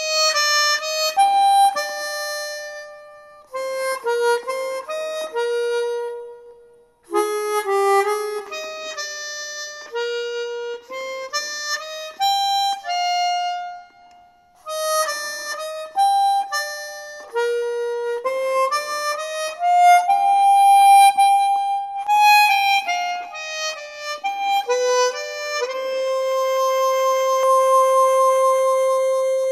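Solo harmonica melody played back through a small speaker, a single line of notes with short pauses, ending on a long held note.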